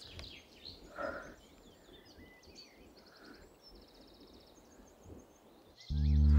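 Quiet woodland ambience with small birds chirping and trilling, and a brief soft noise about a second in. Near the end a loud, deep, sustained drone tone starts abruptly and swamps everything else.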